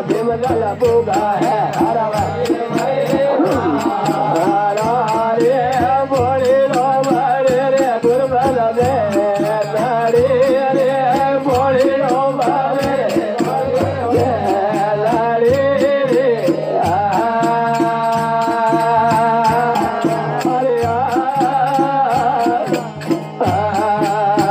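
Rajasthani folk narrative singing: a man's voice singing a winding, ornamented melody over instrumental accompaniment with a steady beat, with one long held note about two-thirds of the way through.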